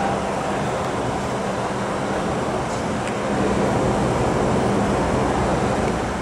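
MTR M-Train electric multiple unit running through an underground station without stopping, a steady rumble of wheels and traction motors with a low hum, growing louder about three seconds in as the cars come alongside.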